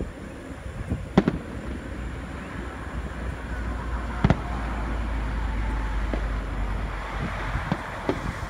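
Aerial firework shells bursting: two sharp bangs, about a second in and about four seconds in, then a couple of fainter pops near the end, over a steady low rumble.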